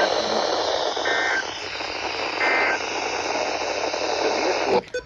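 NOAA Weather Radio end-of-alert SAME data: three short two-tone digital bursts about 1.4 s apart over steady radio hiss, the end-of-message code that closes the warning. Near the end the hiss cuts off suddenly with a click as the receiver drops the signal.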